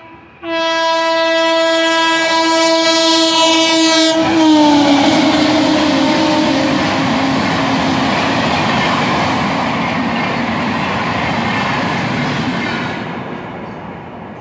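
Howrah–Puri Shatabdi Express passing at speed: its locomotive horn sounds a long blast, broken only briefly just at the start, and drops in pitch as the engine goes by about four seconds in. Then comes the loud steady rush of the coaches running past, fading near the end.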